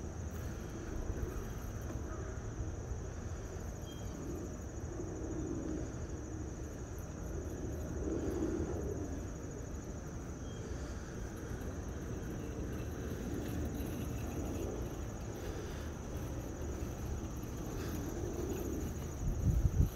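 A steady high-pitched insect trill over the faint whir of a Husqvarna Automower robotic mower driving and cutting across the grass, with a low rumble and a few louder low bumps near the end.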